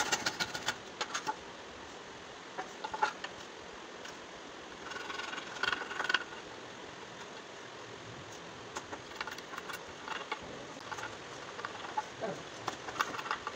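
Hand saw cutting a softwood rail in a run of quick strokes that stops about a second in, followed by scattered light knocks and taps of hand tools and wood pieces.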